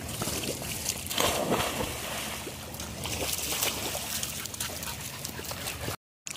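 A person jumping into the sea: a loud splash about a second in, then water sloshing and splashing as he swims. The sound drops out completely for a moment near the end.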